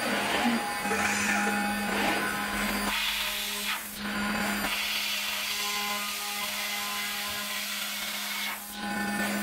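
Aluminium-profile 4-axis CNC processing centre running, its spindle machining an aluminium window profile: a steady hum under a hissing cutting noise. The sound changes abruptly a few times.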